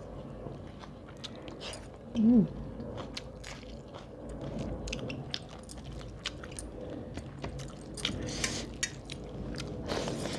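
Close-up eating sounds: chewing and wet lip smacks as a person eats rice and fish curry by hand, with a short hum from the eater about two seconds in.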